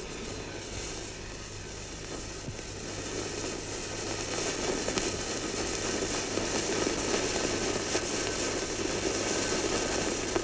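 A lit homemade firework fizzing and hissing with scattered crackles as it burns. The hiss slowly grows louder before the firework goes off.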